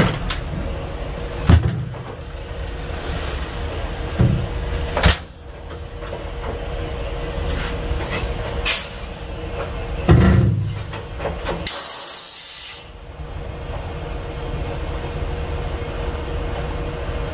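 Semi truck idling, with several clunks and knocks and a short burst of hissing air about two-thirds of the way through.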